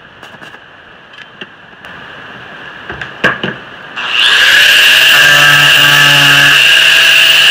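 Stick arc welding on a steel square-tube corner: a steady crackling hiss with scattered pops. About four seconds in, an angle grinder spins up with a rising whine and grinds the weld, much louder than the welding.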